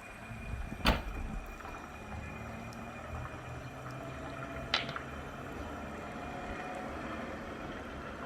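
Car running with a low steady hum, broken by two sharp clicks, a loud one about a second in and a thinner one about five seconds in.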